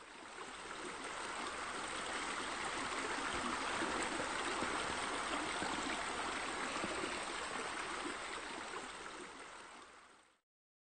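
Steady rush of flowing, splashing water, like a stream or spillway, fading in over the first couple of seconds and fading out shortly before the end.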